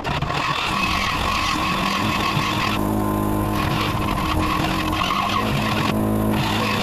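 Air-powered 90-degree die grinder with a carbide bit running at high speed and cutting into metal: a steady whine under a grinding rasp. The rasp eases off briefly about three seconds in and again near the end as the bit comes off the metal while the tool keeps spinning.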